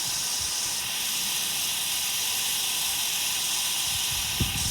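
Steady high hiss of water, with a few soft low thumps near the end.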